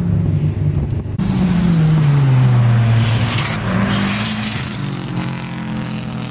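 A race car's engine falling in pitch as the driver lifts and slows into the chicane, then revving up again as it accelerates past close by, with a rush of tyre and exhaust noise as it goes by.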